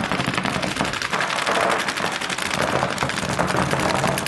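Paintball markers firing rapidly: a dense, unbroken stream of overlapping pops from several markers at once.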